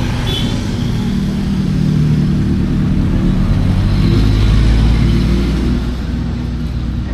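Motor vehicle engine running with a low rumble that grows louder to a peak about four to five seconds in, then eases off.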